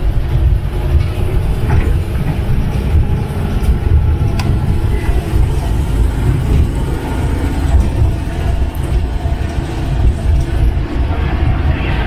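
Steady low rumble of engine, road and wind noise from riding in the open back of a moving songthaew, a pickup-truck shared taxi.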